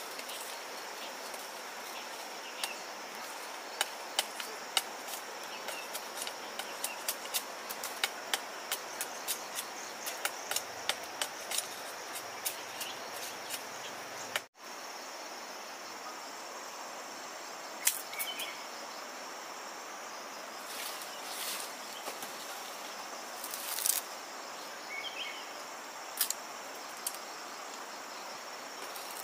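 Machete blade striking a sugarcane stalk and its leaves as it is trimmed: sharp chops, about two or three a second for several seconds, then a few single strokes later on. A steady high drone of insects runs underneath.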